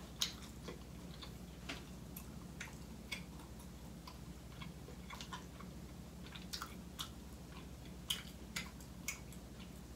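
Close-miked chewing of food with the mouth closed: irregular small wet clicks and smacks from the mouth, over a steady low hum.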